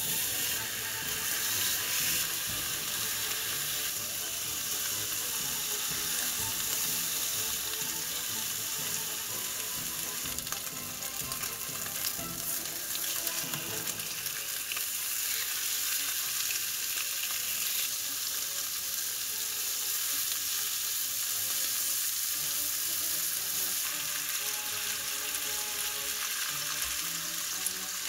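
Pork belly strips sizzling steadily on a hot round griddle pan, the fat frying as the meat cooks.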